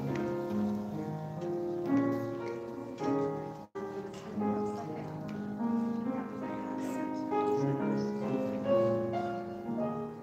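Solo grand piano playing a hymn-like piece, sustained chords under a melody line.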